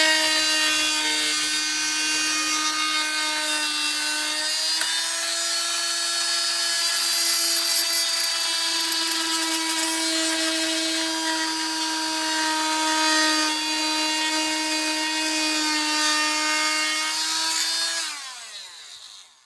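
A small high-speed electric power tool runs with a steady whine while cutting into the plastic air box, its pitch shifting slightly under load, then winds down with falling pitch near the end.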